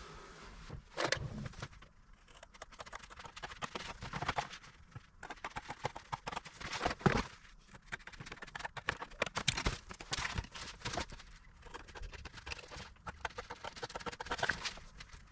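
Irregular clicks, taps and short scrapes of hand work on a workbench, with louder knocks about a second in and about seven seconds in.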